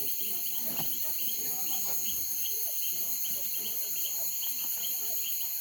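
Crickets and other night insects trilling steadily, with a high pulsed chirp repeating a few times a second.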